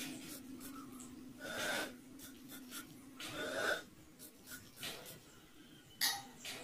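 Pump spray bottle spraying 95% alcohol into the combustion chamber of a homemade alcohol marble gun: two short hissing sprays about two seconds apart, then a short sharp knock near the end, over a faint steady hum.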